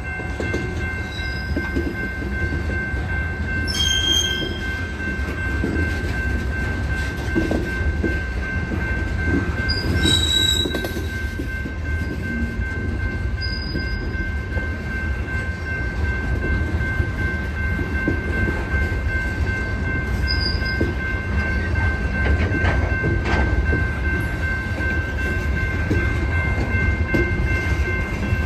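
Freight train of open-top hopper cars rolling past, its wheels on the rails making a steady low rumble, with a continuous high squeal of wheels throughout and a few brief sharper squeaks.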